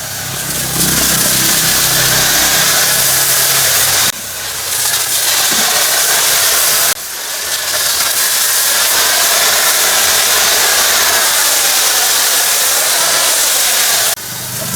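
High-pressure washer spray hissing steadily, cut off briefly about four, seven and fourteen seconds in as the trigger is released. The pressure washer's motor drones underneath and is heard plainly in those gaps.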